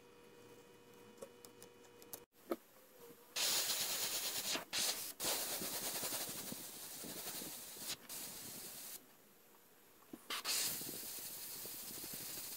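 An airbrush hisses as it sprays paint onto a wooden popper lure. The spray starts a few seconds in, stops for about a second about three-quarters of the way through, then starts again.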